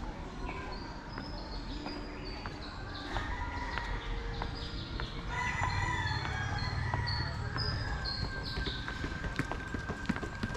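A rooster crowing, with smaller birds chirping throughout, over a steady low background rumble.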